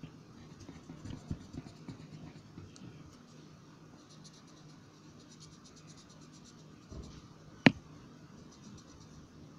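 Colored pencil scratching on paper in short coloring strokes, faint and uneven. A single sharp click comes about three-quarters of the way through.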